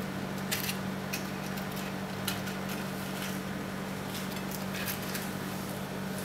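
Battered, deep-fried paper banknotes being handled on a plate, giving scattered light crackles and clicks, over a steady low hum.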